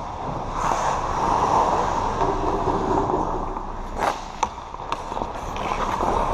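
Ice hockey skates scraping and carving on the rink ice close by, with a few sharp clacks of hockey sticks and puck about four to five seconds in.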